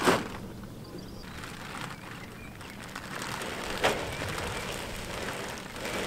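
Range cubes poured from a feed bag into a concrete feed trough, with a sharp knock right at the start and another about four seconds in.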